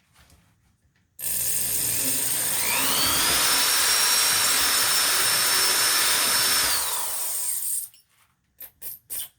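Small electric drill switching on about a second in and running for some six seconds: its whine rises to a steady high tone, then falls as it spins down and stops, while the bit bores a hole through an acrylic harmonica slider. A few short scraping sounds follow near the end.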